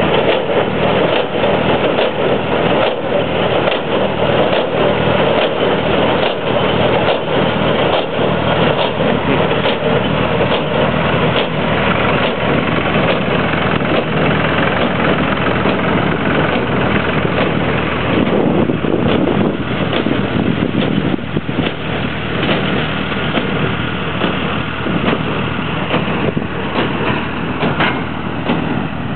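Farm tractor engine running steadily, with the clatter and regular knocks, about one a second, of a New Holland 565 square baler's machinery working.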